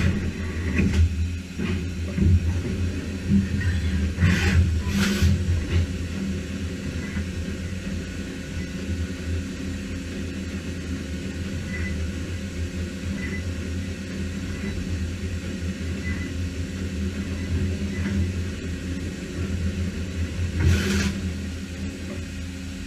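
A Matsuura MAM72-35V 5-axis CNC machining center running with a steady low mechanical hum. Short hisses come twice about four to five seconds in and once more near the end.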